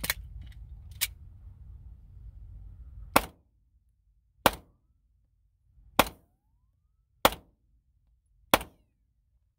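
Seven single 9mm pistol shots from a Polymer80 Glock 19-pattern handgun, fired at a slow, steady pace about a second and a half apart.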